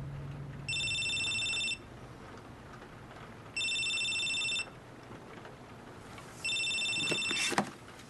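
An electronic telephone rings in three trilling bursts of about a second each, roughly three seconds apart. Just after the third ring comes a short sharp clunk and rattle as the phone is picked up to be answered.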